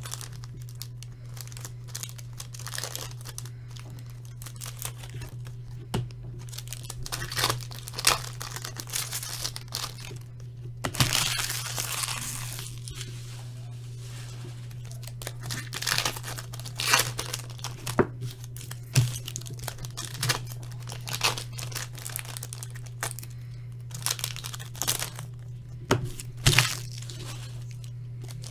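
Hockey card pack wrappers being torn open and crinkled: a string of sharp tearing and crinkling sounds, with a longer tear about eleven seconds in, over a steady low hum.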